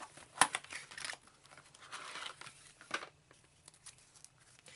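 Trading cards and their packaging being handled and taken out: rustling and crinkling with a few sharp clicks, the strongest about half a second in.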